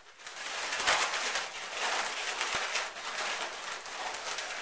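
Inflated 260 latex twisting balloons rubbing against each other and against the hands, an uneven rustling scrape with a couple of sharp clicks, as a twisted beak segment is tucked into the balloon body.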